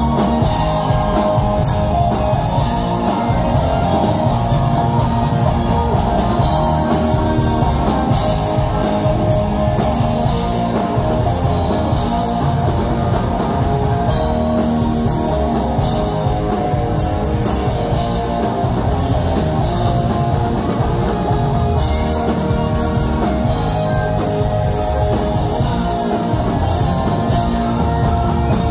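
Live rock band playing loud: electric guitar over bass guitar and drum kit, through the venue's sound system.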